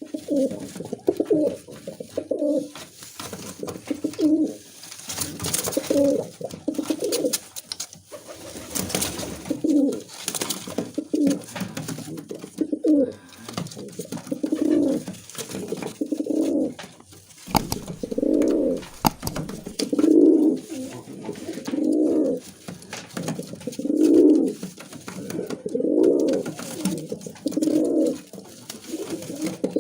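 Musaldom pigeons cooing: low coos repeated over and over, one phrase every second or two.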